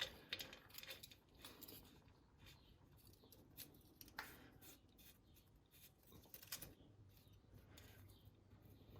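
Near silence with faint, scattered small metallic clicks and scrapes as a differential's oil fill plug is threaded back in by hand.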